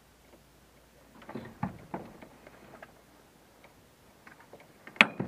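Scattered light knocks and clicks: a cluster about a second and a half in, and a sharp click near the end.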